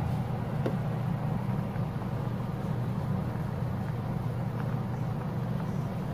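Pot of soup at a rolling boil on a gas stove burner: a steady low rumble with a faint bubbling hiss above it.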